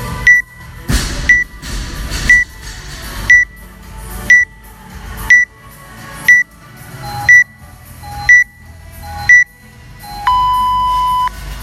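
Workout timer counting down: ten short, high electronic beeps, one a second, then a longer, lower beep of about a second that signals the start of the workout.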